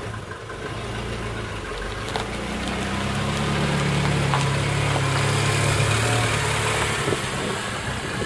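A vehicle engine running, its note rising under load about two and a half seconds in and easing back down near the end, with a few light clinks.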